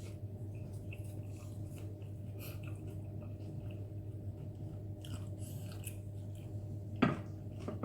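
A person chewing spicy Korean instant noodles close to the microphone: soft, wet chewing and mouth sounds over a steady low hum, with one sharper, louder sound about seven seconds in.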